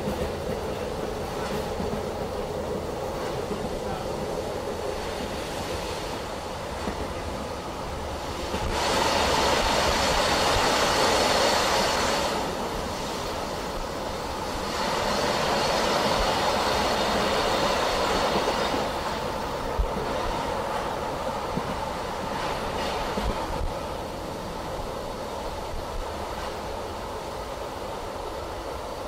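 Running noise of a BLS passenger train heard from inside the coach: a steady rumble and rush of wheels on rail with occasional faint clicks. It swells noticeably louder twice, first for about three seconds and then for about four.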